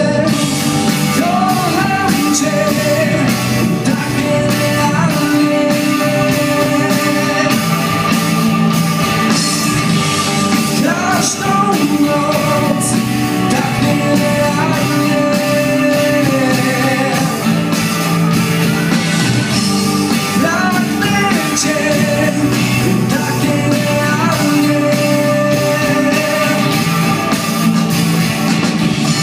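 Rock band playing live, with electric guitars, bass, drum kit and a singer, loud and steady throughout.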